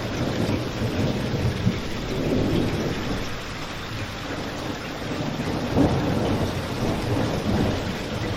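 Steady rain with a deep low rumble, mixed with a crackling fireplace; the rumble swells briefly about six seconds in.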